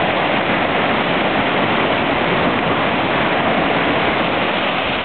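Ocean surf breaking against rocks and washing up a sandy beach: a steady, unbroken rush of water.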